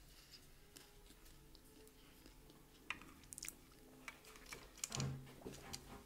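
Faint chewing of pizza, then small clicks and sips of drinking through a metal straw from a metal cup, with a short low sound about five seconds in.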